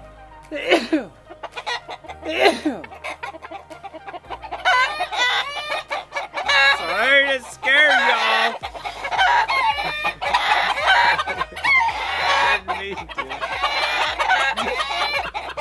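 Chickens clucking and calling, with a rooster crowing; the calls grow busier and overlap about four seconds in.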